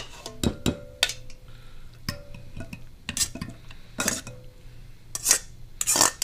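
Kitchen utensils clinking and scraping: a metal spoon knocking against a glass mixing bowl, with a short metallic ring just after the start. An aluminium colander then scrapes and knocks on the bowl's rim as cooked egg noodles are tipped in. The knocks and scrapes come every second or so and grow busier and louder near the end.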